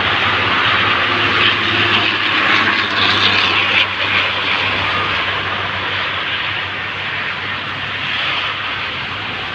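Large bus engine running loud and steady with a rushing roar, a little louder a few seconds in and easing off slightly towards the end.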